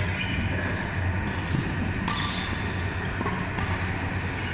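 Badminton rally: rackets striking the shuttlecock with sharp clicks and court shoes squeaking on the floor in short high squeaks, over a steady low hum of the hall.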